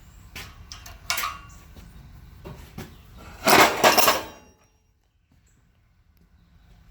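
Several sharp metallic knocks and clinks, then a louder rattling clatter lasting about a second, about three and a half seconds in.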